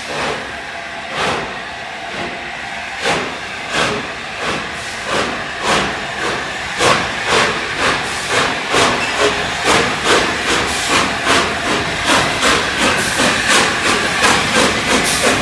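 Steam locomotive Union of South Africa, a three-cylinder LNER A4 Pacific, pulling away. Its exhaust chuffs sound over a steady hiss of steam, the beats speeding up from about one a second to three or four a second as it gathers speed.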